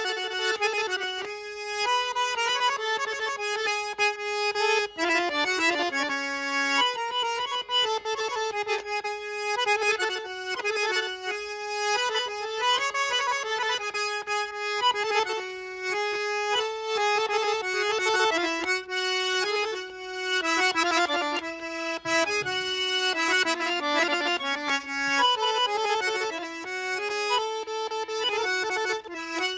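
Button accordion playing a fast, ornamented melody over a sustained lower note.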